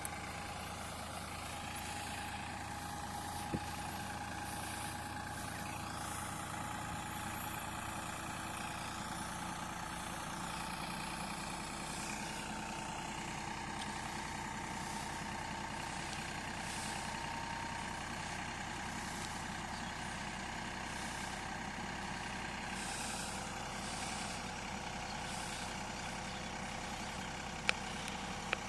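Diesel engines of a JCB backhoe loader and a tractor running steadily under work, with a steady whine over the engine note and two or three sharp clicks.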